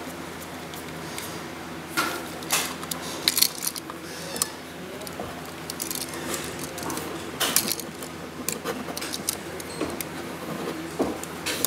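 Irregular metal clicks, clinks and scrapes as copper wires are hooked onto an electrical outlet's terminal screws and a screwdriver tightens them down. A faint steady hum runs underneath.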